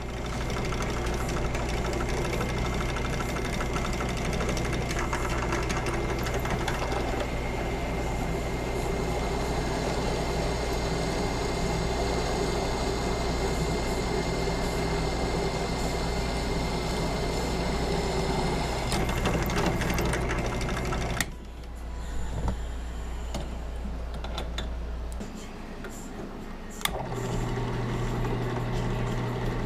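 Drill press motor running with a steady hum while drilling holes in a steel knife blank. About two-thirds of the way through the sound drops away abruptly; near the end a click comes and the hum starts again.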